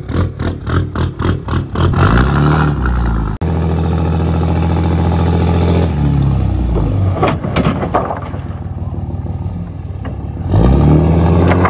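Dodge Ram dually pickup's engine revving and pulling as it drives across a rough field, rising in pitch twice. A stack of lumber on the tailgate clatters and scrapes as it bounces and slides off.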